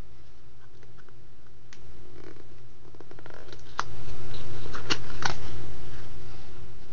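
A paperboard product box being handled and its tuck flap pulled open, with scattered small clicks and rustles, the sharpest a few seconds in. A steady low hum runs underneath.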